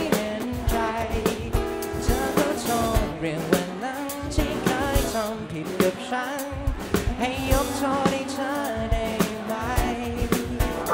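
Live pop band: a man singing a Thai song into a microphone, backed by guitars and a drum kit with a steady beat.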